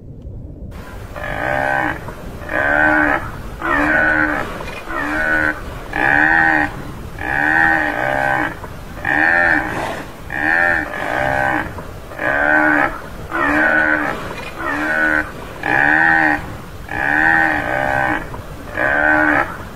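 Tamaraw (Mindoro dwarf buffalo) calling: a long run of short, bleating moos about one every second and a bit, each under a second long and rising then falling in pitch.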